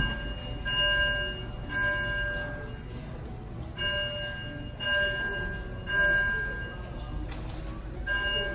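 Bell-like chime tones sound at irregular intervals, each ringing for about a second, over a steady low rumble.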